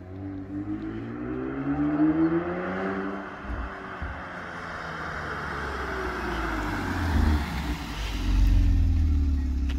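Kia Stinger GT's 3.3-litre twin-turbo V6 breathing through a Bastuck aftermarket exhaust, accelerating toward and past: the engine note rises for about three seconds, falls back, then climbs again into a deep exhaust drone as the car passes close near the end.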